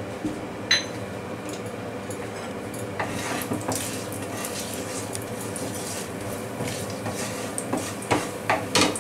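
A spatula stirs whole garam masala spices in hot oil in a non-stick frying pan, scraping and tapping against the pan over a quiet steady sizzle. A few sharper knocks come near the end.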